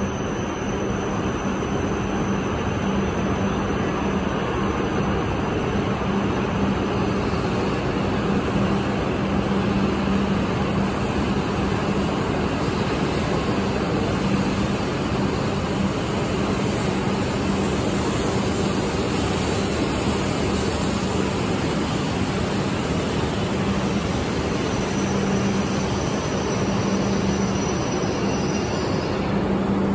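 E5 series Shinkansen standing at the platform with its equipment blowers running: a steady, loud rushing hum with a constant low drone under it.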